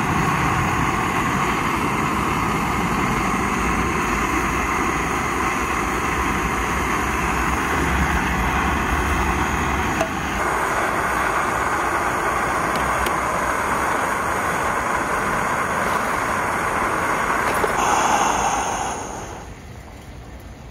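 Canister gas camp stove burner running with a steady rushing hiss under a cooking pot, dying down near the end.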